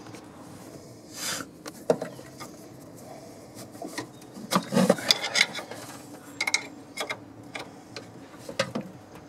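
Long screwdriver scraping and clicking against metal parts in a truck's engine bay, in short irregular scrapes and clicks that are busiest about halfway through.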